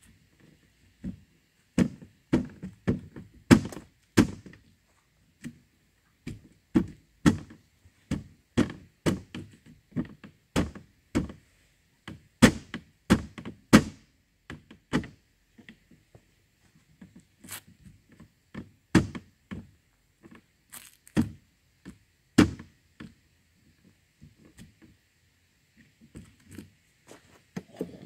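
Hammer blows on wood, landing about one or two a second in irregular runs with short pauses between them.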